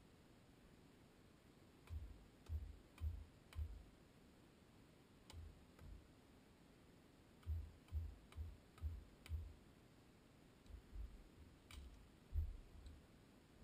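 Axe chopping wood: dull, faint knocks in short runs, about four strikes in quick succession, then two, then five, then another run, with the loudest blow near the end.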